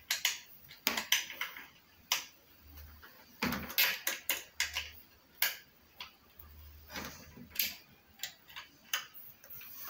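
Irregular metallic clicks and taps of a hex key turning the bolts that fix a brush cutter's engine to the aluminium shaft housing, with the tool knocking against the metal now and then.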